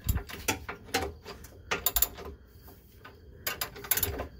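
Scattered metallic clicks and clinks of a 21 mm socket on an extension bar knocking against the chassis as it is worked up onto the rear shock's upper mounting bolt. The clicks come in small irregular clusters, not a steady ratchet rhythm.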